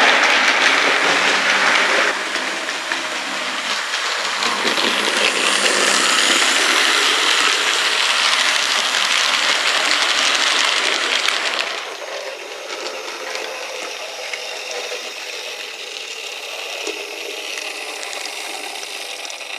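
OO gauge model trains running on the track: a steady metallic rattle and clicking of small wheels and coaches over the rails, quieter from about twelve seconds in.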